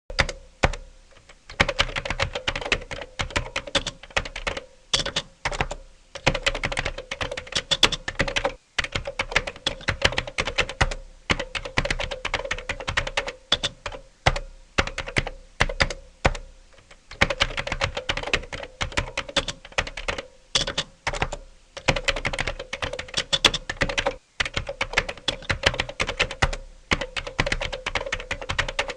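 Computer keyboard being typed on fast, a dense run of key clicks broken by a few brief pauses.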